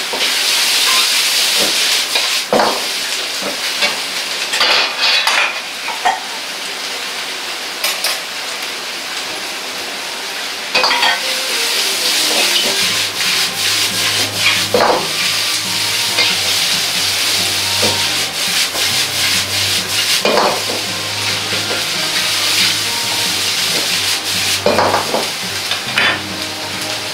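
Stir-fry in a carbon-steel wok over a high gas flame: the vegetables and sausage sizzle steadily while a metal ladle scrapes and clanks against the wok every few seconds as the food is stirred and tossed. A low hum comes in about halfway through.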